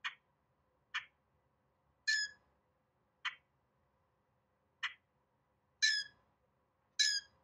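Common grackle calling: short, sharp 'chack' notes mixed with three louder, harsher squeaky calls, about seven calls in all, spaced a second or more apart.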